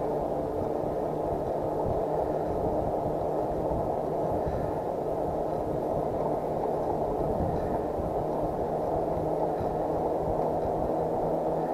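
Steady wind rush on the microphone while riding an e-bike, with a faint steady hum beneath it.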